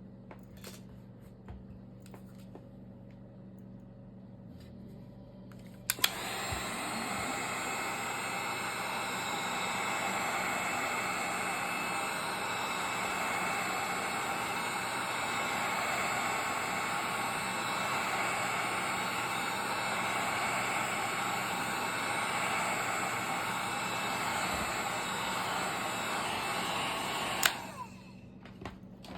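Hot air gun switched on with a click about six seconds in, blowing steadily for about twenty seconds, then switched off with a click near the end. It is heating an iPhone 7's screen to soften the adhesive before prying.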